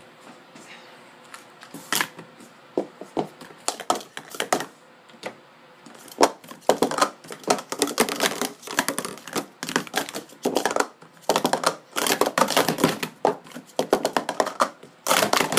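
Hard plastic sport-stacking cups (Speed Stacks Pro Series 2) clicking and clacking as they are stacked up and down at speed. There are only scattered clicks at first, then a fast, dense run of clacks from about six seconds in.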